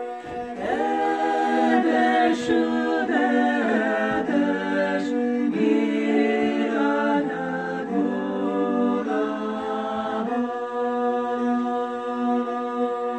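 Background music: an a cappella choir of voices singing in harmony, holding chords that shift every second or so, with one long held chord near the end.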